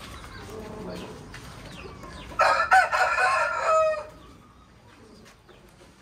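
A rooster crows once, a loud call of about a second and a half that starts a couple of seconds in.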